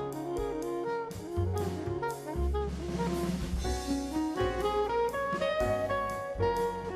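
Background jazz music: a saxophone-like melody over bass and a drum kit with a steady beat.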